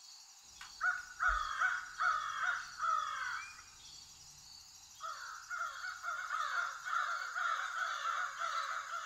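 Crows cawing outdoors, a series of repeated calls in two bouts: one in the first three seconds or so and a longer run from about five seconds in.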